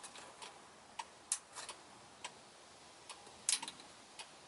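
Turn signal flasher relay clicking faintly in an uneven rhythm, some clicks in quick pairs or threes. A short in the wiring keeps triggering the relay.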